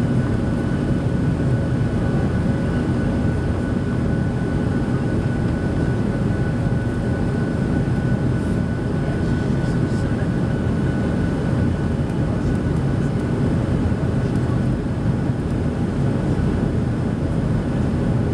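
Cabin noise of a Boeing 737-700 in flight: the CFM56 jet engines' steady drone and airflow noise, with a faint steady whine held over it.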